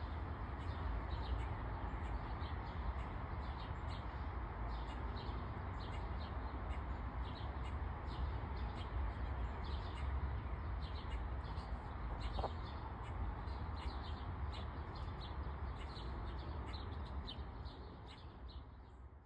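Small birds chirping over and over in short, quick calls above a steady low rumble of outdoor background noise; the sound fades out near the end.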